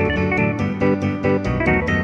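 Background music: guitar-led track of quick plucked notes over a bass line.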